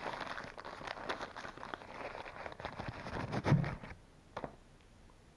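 A thin wrapper crinkling and rustling as it is pulled off a frozen ice cream bar, with a dull thump about three and a half seconds in. It then goes quiet apart from one brief rustle.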